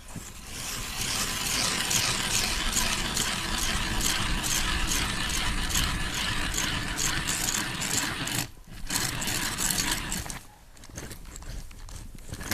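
Hand ice auger drilling a new hole through river ice, its blades scraping and crunching through the ice in quick repeated strokes. It pauses briefly about eight and a half seconds in and stops about two seconds later.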